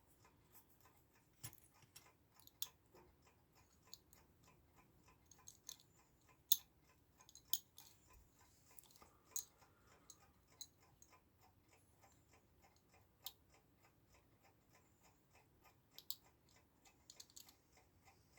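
Faint light clicks and taps of small brass wheels and pivots of a clock movement being handled and fitted into the plate, a few sharper clicks standing out. Faint steady ticking runs underneath.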